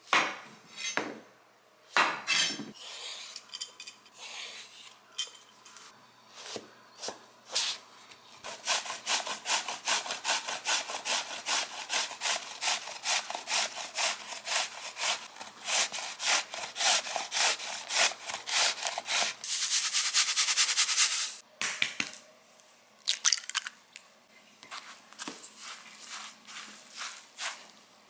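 A kitchen knife cutting into a large zucchini on a wooden cutting board, then the zucchini scraped against a grater over a bowl in a long run of quick, even strokes, about three a second.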